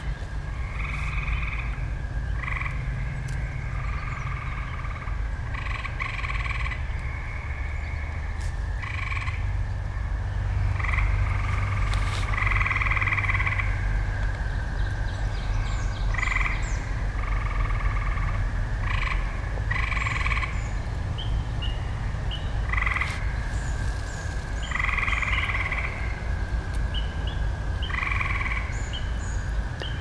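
Chorus of frogs calling: repeated trills, each about half a second to a second long, over a steady trilling drone from many more frogs.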